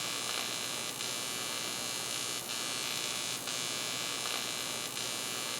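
A steady electrical hum with a constant hiss.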